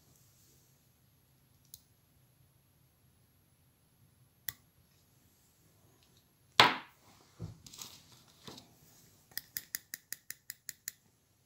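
Fine fly-tying scissors and tools handled at the vise: a few light clicks, one sharp knock about two-thirds in, the loudest sound, with smaller clatters after it, then a quick run of about ten light, even clicks near the end as the scissors are brought to the fly.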